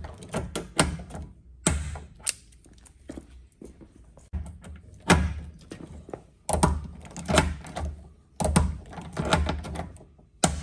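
Lazy-tong pop rivet gun being pumped to set pop rivets through a vehicle's body panel, a rope cleat being riveted in place: sharp clicks and snaps from the scissor linkage and rivets, coming in several bursts with short pauses between.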